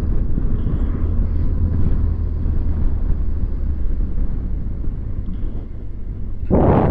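BMW R1200GS boxer-twin engine running steadily at road speed under wind noise on the bike-mounted microphone. Near the end an oncoming car passes close with a brief rushing whoosh.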